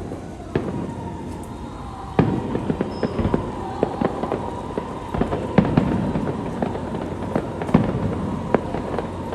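Fireworks show: a quick series of bangs and crackles from bursting aerial shells, recorded on a phone, with the loudest bursts about two seconds in, in the middle and near the end.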